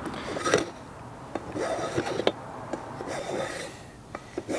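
Small hand plane shaving the edge of an old weathered board in several strokes about a second apart, with sharp light clicks between strokes.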